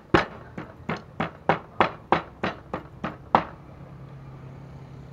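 Stone pestle pounding in a wooden mortar: steady strokes about three a second, a dull knock on each, stopping about three and a half seconds in.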